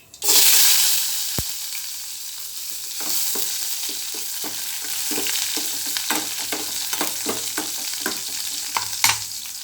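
Small onions (shallots) going into hot groundnut oil with popped mustard seeds: a loud sizzle bursts up and fades over about a second. Then the oil sizzles steadily while the onions are stirred, with a utensil clicking and scraping against the pan a few times a second.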